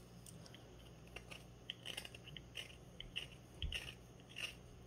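Carving knife shaving wood from the inside of a bark-covered log in short, irregular crisp cuts. A soft low thump comes a little past halfway through.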